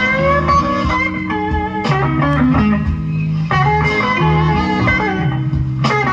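Live slow blues with no singing: an electric guitar plays a fill between vocal lines, opening with a note bent upward, over bass and band backing.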